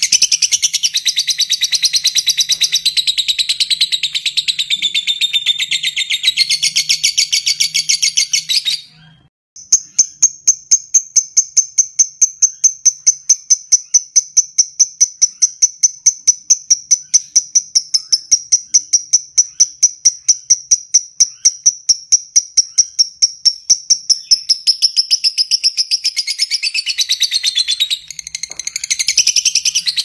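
Fischer's lovebird singing its long 'ngekek' chatter: a dense run of high, rapid notes, a short break about nine seconds in, then a long, even series of sharp repeated notes, about five a second, that loosens into mixed chatter near the end.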